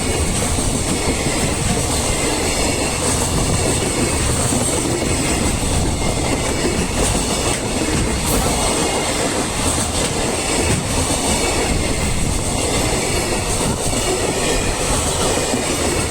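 Freight train hauled by a JR Freight EF210 electric locomotive passing over a level crossing, its wagons rolling by steadily with the wheels clattering over the rail joints.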